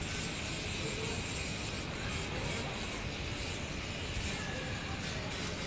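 Steady background noise, an even hiss and hum, with no ball strikes.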